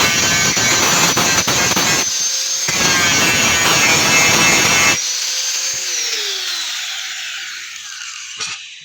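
Electric grinder grinding scrap iron. It is lifted off the work for a moment about two seconds in, then grinds again. At about five seconds the grinding stops and the motor is switched off, its whine falling steadily in pitch as the disc spins down over the next few seconds.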